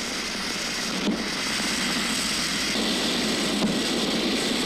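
Ground fireworks being test-fired, burning with a steady rushing hiss, with a sharp crack about a second in.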